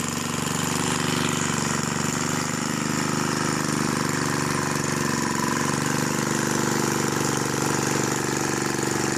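Old tiller's small gasoline engine running steadily, picking up a little speed a couple of seconds in.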